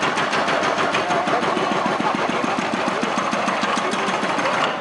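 An engine running close by with a rapid, even pulse.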